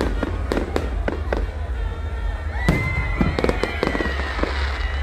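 Aerial fireworks going off in a rapid series of sharp bangs and crackles. A high whistling tone comes in a little past halfway and holds to the end.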